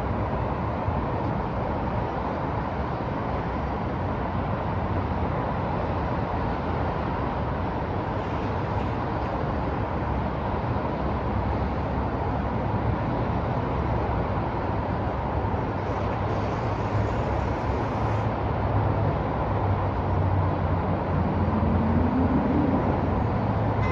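Steady city street traffic: a continuous hum of passing vehicles. Over the last few seconds a vehicle's low engine or motor tone rises in pitch as it speeds up.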